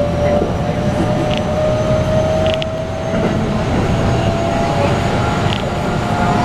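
Running sound of a Keikyu 600 series electric train with a Toyo GTO-VVVF inverter, heard inside the passenger car: a steady motor whine slowly rising in pitch as the train gathers speed, over the low rumble of wheels on rails.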